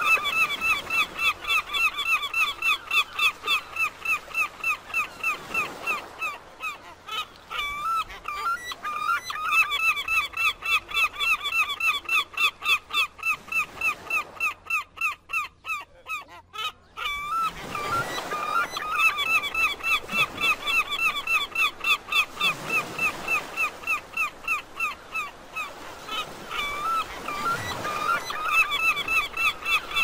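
Gulls calling in long runs of quick, repeated hooked notes, about four a second, breaking off for a few seconds around the middle. A soft rushing sound swells up several times underneath.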